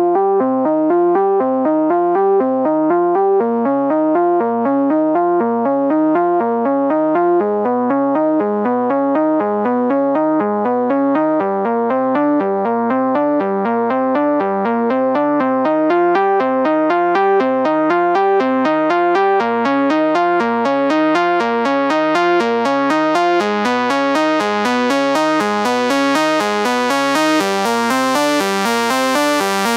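Sawtooth synth lead from u-he Hive's 'XS Brutal Saw' patch playing a fast repeating sequence of short notes in mono, an octave up, with the bass cut away below 250 Hz so it sounds thin and bright. The top end grows steadily brighter over the second half.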